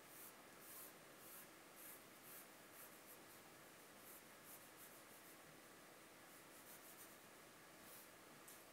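Graphite pencil sketching lightly on drawing paper: faint, short scratchy strokes, about two a second, with brief pauses between runs.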